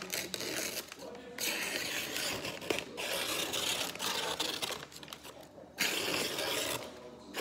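Newspaper rustling and crinkling as the wrapping is pulled apart by hand, in several bursts with short pauses between.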